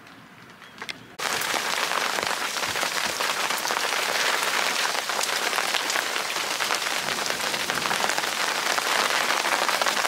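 Heavy rain from a thunderstorm falling, a dense steady hiss of drop hits that starts suddenly about a second in.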